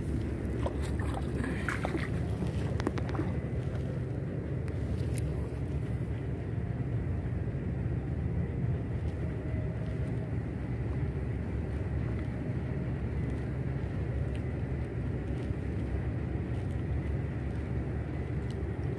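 Steady low rumble, with a few short rustles and clicks in the first three seconds.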